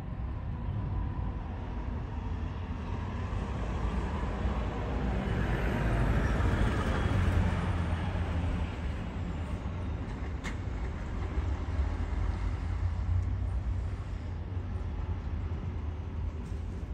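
Outdoor ambience of distant road traffic: a steady low rumble, with a broader noise that swells and fades like a vehicle passing around the middle. A single sharp click comes a little past halfway.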